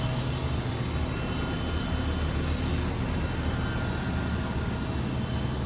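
Outdoor heat pump units running: a steady low compressor hum with the whoosh of the condenser fan and faint steady higher tones.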